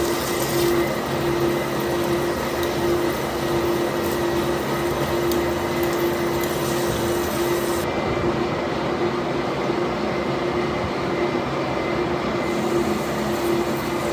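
Manual lathe running steadily: an even machine noise with a constant mid-pitched hum.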